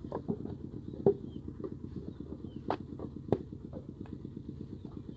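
Wet clay being slapped and pressed by hand into a wooden brick mould, giving several sharp irregular knocks and slaps. Under them runs a steady low engine rumble.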